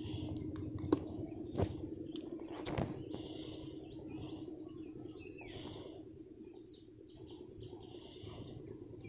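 Birds chirping in the background, many short high calls scattered throughout, over a low steady hum. A few sharp clicks come in the first three seconds.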